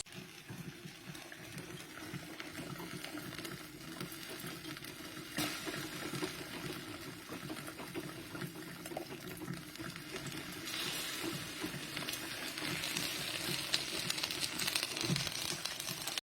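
Russell Hobbs Victory filter coffee machine brewing, with hot water gurgling and hissing as it drips through onto the coffee. It gets a little louder after about eleven seconds.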